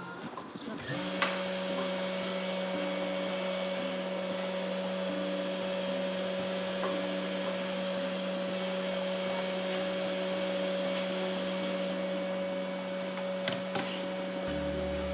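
Desktop CNC router's spindle motor switching on about a second in and running with a steady whine as the bit cuts into a plywood workpiece. Short on-off motor whines from the axis drives come and go over it.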